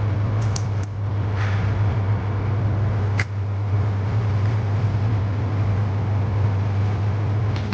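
Steady low mechanical hum over a broad hiss, with a few faint clicks.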